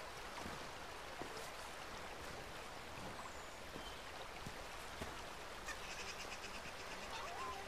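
Steady rushing of a rocky stream, an even watery hiss with no distinct events.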